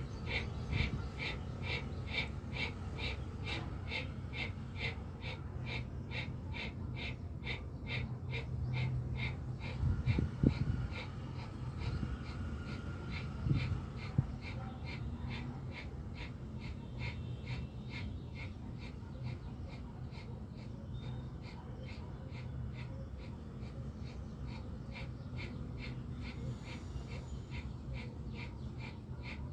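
Bhastrika pranayama (bellows breath): fast, forceful breaths in and out through the nose in a quick, even rhythm, growing fainter in the second half, over a steady low hum. Two brief thumps come about ten and fourteen seconds in.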